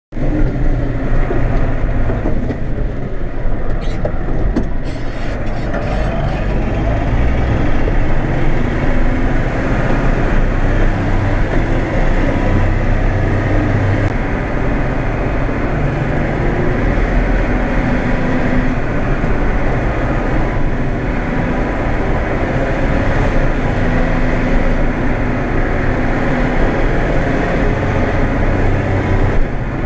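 New Holland 8160 tractor's six-cylinder diesel engine running steadily under load, pulling a four-furrow reversible plough.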